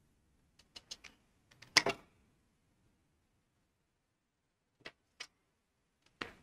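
Scissors snipping off paracord strands: a cluster of sharp clicks in the first two seconds, the loudest about two seconds in, then two more a little after the middle and one near the end.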